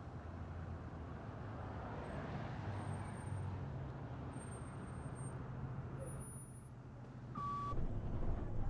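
City transit bus pulling in and running with a steady low engine drone, the noise swelling as it passes close. A short high beep sounds about seven seconds in.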